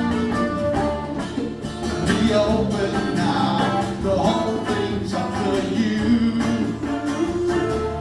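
A live band playing a country-rock song: electric and acoustic guitars and bass over a steady percussion beat, with singing.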